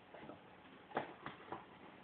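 German shepherd chewing a bone: irregular faint crunches and clicks of teeth on bone, the loudest about a second in.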